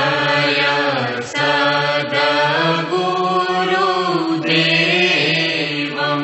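Voices chanting a devotional aarti in a melodic line over a steady sustained drone.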